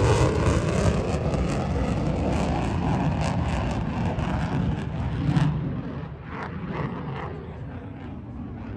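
F-35A Lightning II's single Pratt & Whitney F135 turbofan passing at high speed and fading away. The jet noise thins to a fainter low rumble about halfway through.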